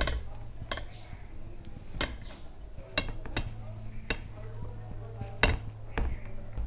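Dishes clinking: about eight sharp, separate taps and clinks of plates and bowls being handled during a meal, over a low steady hum.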